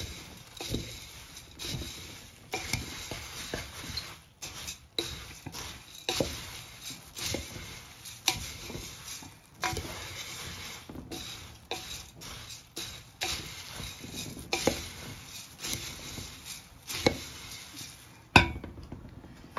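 Wooden spoon stirring and tossing puffed rice (mamra) in a stainless steel pot as it roasts on a low flame: a dry rustle of grains with irregular scrapes and knocks of the spoon against the pot. A sharper knock comes near the end.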